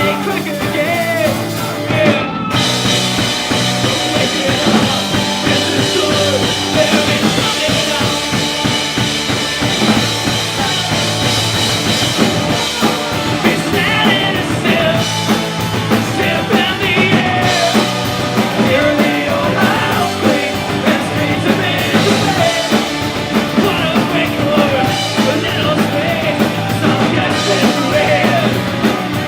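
Live punk-rock band playing loudly: a drum kit keeping a steady beat under singing.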